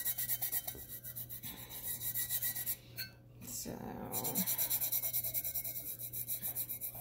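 Fingertips rubbing fine holographic glitter flat into the glue coat on a tumbler: a rapid, scratchy back-and-forth rubbing, working the loose glitter down so it lies flat. The rubbing drops away briefly about three seconds in, then resumes.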